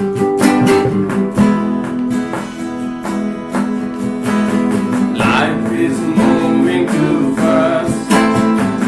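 Music: guitar strumming in an instrumental passage of a song, with sustained chords ringing under repeated strums.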